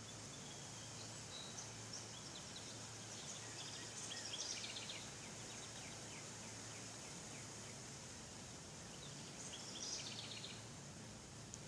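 Birds chirping faintly in two bouts of quick, high trills, the first peaking about four seconds in and the second near ten seconds, over a steady hiss and a low hum.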